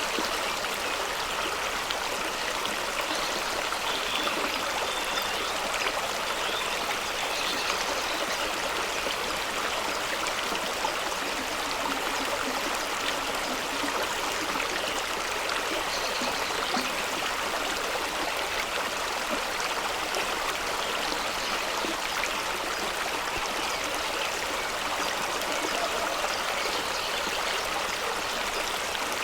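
Fast-running stream rushing and splashing over rocks below a small waterfall, a steady hiss of flowing water with little low rumble.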